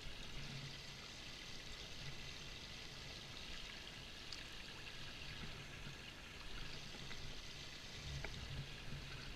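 Pool water trickling and splashing steadily while the vacuum hose is held under to fill, pushing the air out of it.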